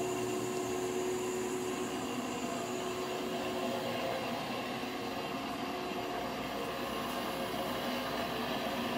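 Haas VF-4 CNC vertical mill running its spindle warm-up program: a steady machine hum and whine with several steady tones, one of which fades out about halfway through.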